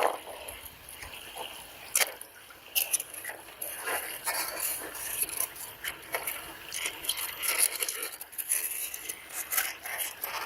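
Irregular series of sharp clicks, knocks and scraping, with no steady tone.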